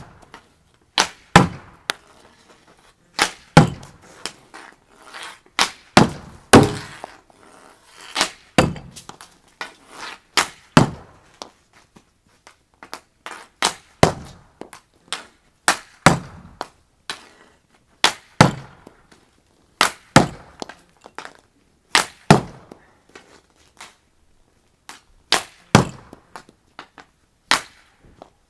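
Street hockey shots in quick succession: the sharp clack of a stick striking a plastic puck or ball, followed a fraction of a second later by the hit against the shooting wall and its clay-pigeon targets. The hits often come in close pairs, every one to two seconds.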